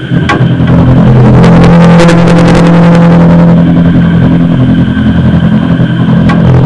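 Harsh noise music: right at the start it surges into a loud, dense mass of distorted noise over a low steady drone, with crackling clicks scattered through it.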